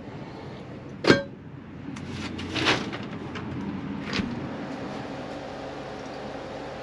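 A sharp clank about a second in, with a brief ring, followed by scraping and a few softer knocks, over a steady hum.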